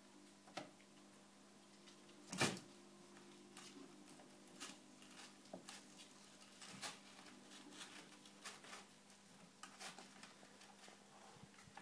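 Kittens playing on a wooden floor: scattered soft taps and clicks of paws and claws, with one louder bump about two and a half seconds in, over a faint steady hum.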